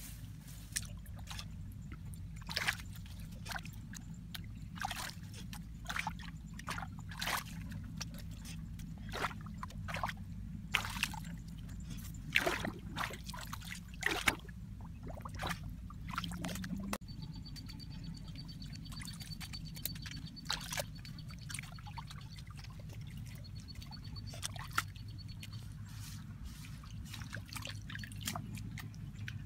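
Irregular wet splashes, sloshes and squelches of hands digging and scooping in shallow muddy water and mud. A faint steady high whine runs through the middle stretch.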